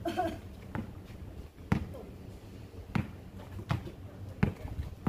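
Basketball bouncing on an asphalt court: about five separate thumps, irregularly spaced roughly a second apart.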